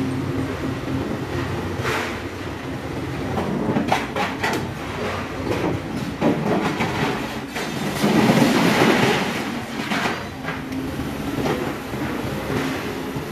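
Steady hum of a ship's deck crane and its grab working a scrap-metal load, with scattered metal clanks and bangs. A longer, louder rattle of metal comes about eight seconds in.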